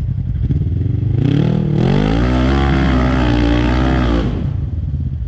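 Side-by-side UTV engine revving up hard under throttle on a steep dirt hill climb: the pitch rises from about a second in, holds high for about two seconds, then drops away near the end as the throttle comes off.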